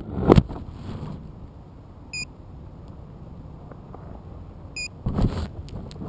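A sharp knock just after the start, then steady outdoor background noise broken by two short electronic beeps about two and a half seconds apart. Near the end comes a burst of rustling handling noise as the landed quadcopter is picked up.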